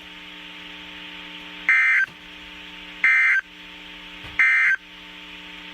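Three short NOAA Weather Radio SAME digital data bursts, harsh screeching tones about 1.4 s apart, marking the end of the warning message. They sound over a steady low buzzing hum on the radio feed.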